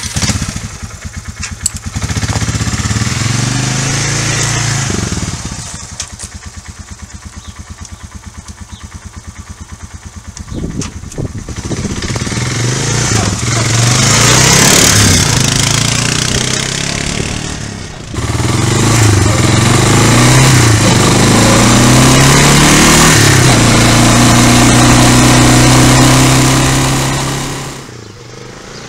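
Honda Big Red quad bike's single-cylinder engine idling with an even putter, then revving up as the quad moves off and running loud and steady at higher revs, with a brief dip about eighteen seconds in. Near the end it suddenly drops to a quieter, more distant engine sound.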